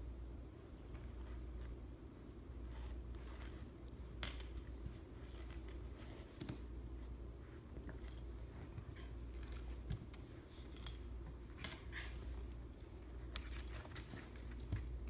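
Dog collar tags jingling in short, scattered clinks as a puppy nudges and paws at an old dog, over a low steady hum.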